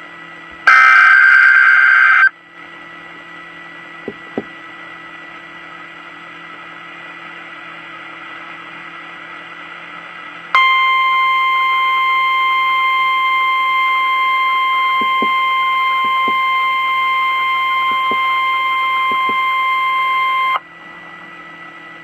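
NOAA Weather Radio alert audio: a short, loud burst of SAME digital data tones (the warbling squawk of the emergency alert header), then low radio hiss. About ten seconds in, the steady 1050 Hz weather radio alert tone starts and holds for about ten seconds before cutting off.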